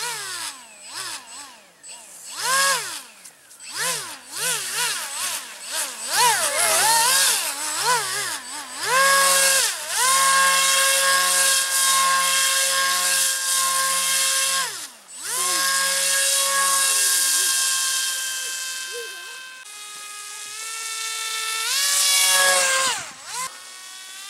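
Electric motor and propeller of an AquaCraft Cajun Commander RC airboat running on a 3S LiPo, whining as the throttle is blipped up and down in quick bursts for the first several seconds. It then holds a steady high whine for several seconds at a time, drops off twice, and steps back up near the end.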